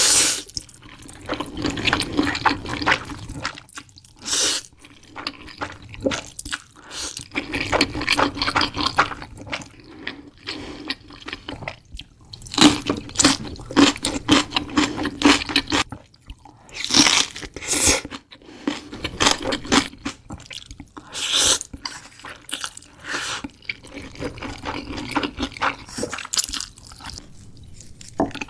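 Close-miked eating sounds: wet chewing and crunching of food, broken by sharp bites and short pauses.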